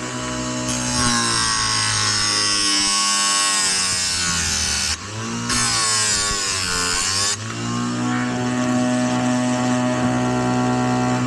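Oregon electric chain sharpener running, its grinding wheel working chainsaw teeth in two passes. A grinding hiss starts about a second in, and the motor's pitch sags under the load. After a brief break it grinds again, then drops back to the free-running motor hum after about seven seconds.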